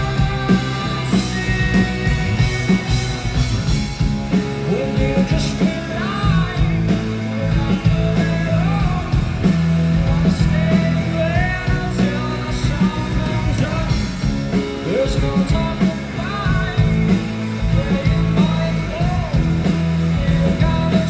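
Indie rock band playing live and loud: drums, bass and electric guitar, with melodic lines that slide and bend in pitch over a full, continuous band sound.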